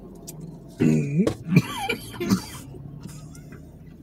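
A person coughing and clearing their throat: a few short throaty vocal sounds, between about one and two and a half seconds in.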